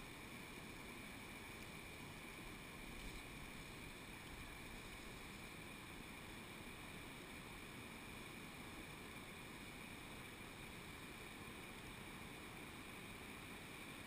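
Faint steady rush of a rocky mountain stream's small falls and riffles, muffled through a waterproof camera housing, over a constant hiss.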